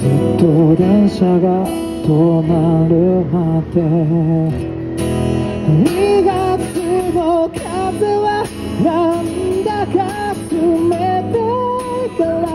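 A man singing a slow, emotional melody with vibrato while strumming an acoustic guitar; voice and guitar come in loudly right at the start after a quieter passage.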